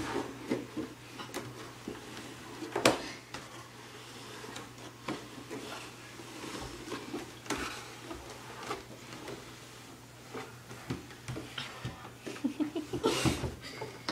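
Irregular knocks and bumps of a child sliding head-first down wooden stairs on her stomach, her hands and body landing on the treads, with one sharp knock about three seconds in and a quicker run of knocks near the end.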